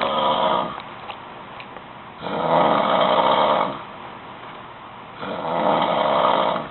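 A sleeping person snoring loudly in a steady rhythm of long, rasping snores about every three seconds: one trailing off at the start, then two full snores.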